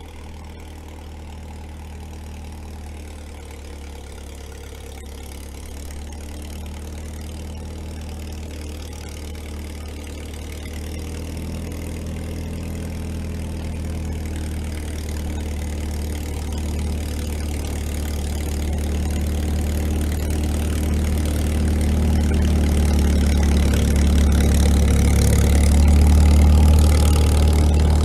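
IH TD-6 crawler dozer's straight-piped engine running with a low, steady note, growing steadily louder as the crawler approaches.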